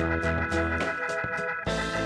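Background music: an upbeat instrumental with steady notes on a regular beat, with a change in the bass near the end.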